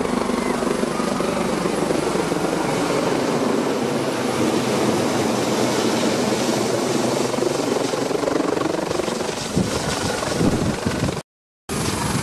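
Helicopter running at close range as it descends to land, a steady, dense rotor and engine noise. The sound cuts out completely for about half a second near the end, then comes back.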